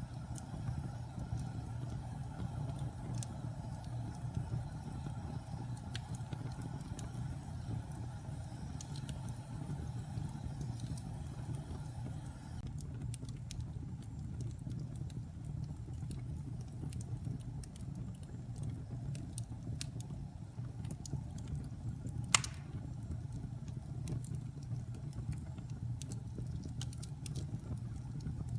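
Wood fire burning in a fireplace: a steady low rumble of flames with scattered small crackles and one loud sharp pop about three-quarters of the way through.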